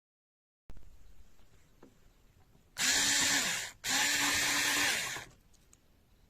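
Cordless electric screwdriver motor run twice briefly, each run spinning up to speed with a whirring whine over a loud hiss, about a second apart.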